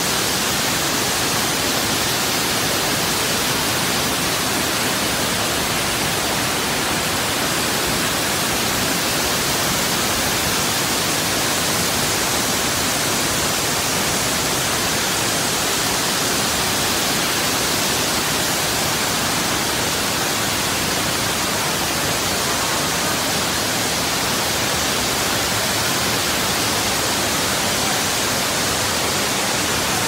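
Large waterfall: a steady rush of falling water, an even hiss that holds the same level throughout.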